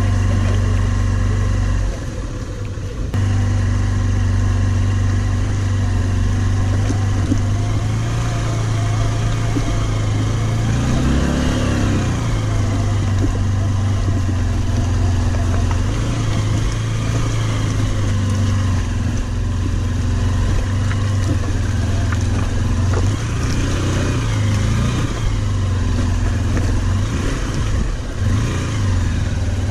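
Motorcycle engine running steadily, with the revs rising and falling a couple of times.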